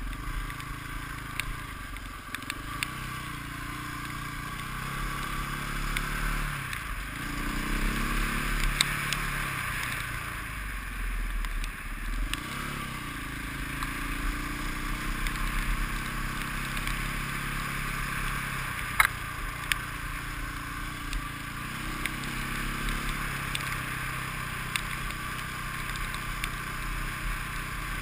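KTM enduro motorcycle engine running while being ridden on a trail, its pitch rising and falling with the throttle several times, under a steady hiss. A few sharp knocks stand out.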